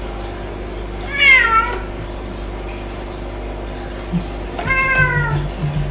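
Domestic cat meowing twice, about three seconds apart; each meow falls in pitch at the end.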